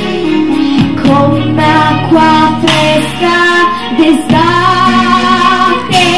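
A girl singing into a handheld microphone over instrumental backing music, holding one long note with vibrato near the end.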